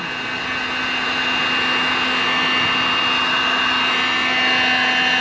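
Electric heat gun running steadily, a fan rush with a steady whine, shrinking heat-shrink sleeving over wiring connectors.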